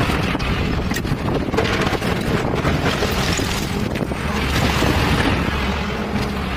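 Hyundai 210 Smart Plus excavator's diesel engine running steadily, with wind noise on the microphone and a few sharp knocks.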